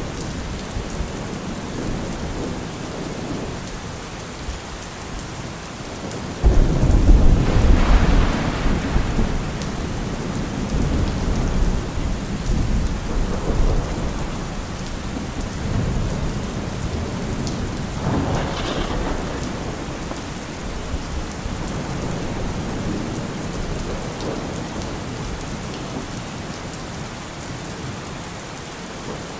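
Steady rain with rolling thunder. A sudden loud rumble comes about six and a half seconds in and dies away over the next few seconds, and a weaker roll comes about two-thirds of the way through.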